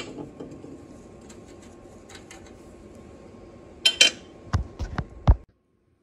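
Small metal parts being handled at a bench vise: faint ticks, then a ringing metallic clink about four seconds in and a few sharp clicks just after, over a low steady shop hum. The sound cuts off suddenly about five and a half seconds in.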